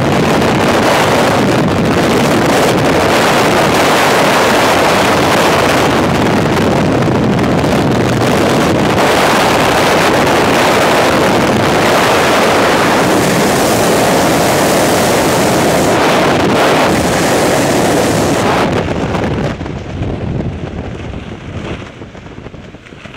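Loud, steady freefall wind rushing over a helmet-mounted camera's microphone. About nineteen seconds in it drops away to a quieter, uneven rush as the parachute opens.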